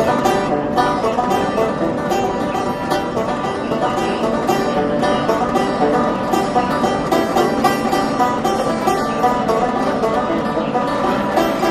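Banjo and acoustic guitar playing a bluegrass tune, a steady run of quickly picked notes.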